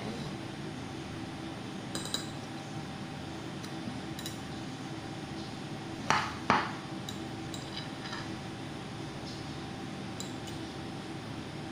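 Metal fork working through buttercream icing, with a few light ticks and two sharper clinks of the fork against the china cake plate about six seconds in. A steady low hum runs underneath.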